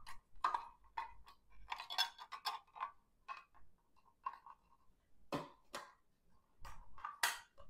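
Scattered light clicks and taps as a slicing blade and the plastic cylinder of a KitchenAid slicer-shredder attachment are handled, with a few sharper clicks after about five seconds.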